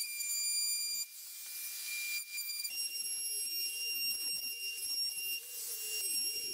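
DeWalt cordless palm router fitted with a quarter-inch straight bit, running with a steady high-pitched whine while it cuts a rabbet along the edge of a plywood sheet. The level drops about a second in. A little later the whine steps up in pitch, and a wavering lower hum from the cut comes in under it.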